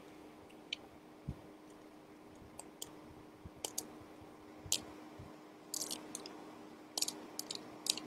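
Faint, scattered light clicks and taps of a hard plastic toy head being handled and prodded with a thin pen-like tool, with a small cluster of clicks near six seconds and again near the end, over a faint steady electrical hum.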